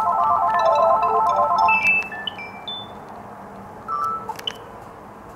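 Gigaset cordless phone handsets ringing an incoming external call with a fast electronic melody ringtone. The loud melody ends about two seconds in and is followed by quieter, higher notes. About four seconds in there is a short beep with a click as a handset key is pressed to answer.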